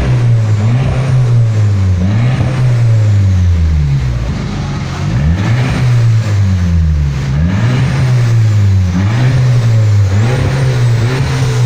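Turbocharged Audi engine running with no exhaust fitted, open at the pipe stub, loud and raw. It is revved over and over, the pitch rising and falling roughly once a second, with a short dip in the middle.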